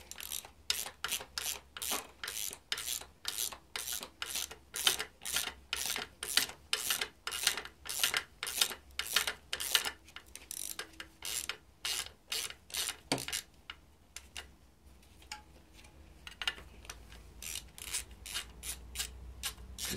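Hand socket ratchet clicking in quick back-and-forth strokes, about two or three a second, unscrewing an exhaust manifold nut on a BMW M52TU/M54 cylinder head; the nut turns off freely rather than seizing. The strokes stop for about three seconds after the middle, then start again.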